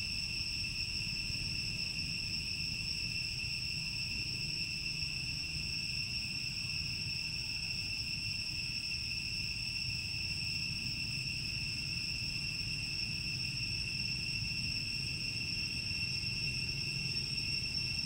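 Insects shrilling steadily in one unbroken high tone, over a low background rumble.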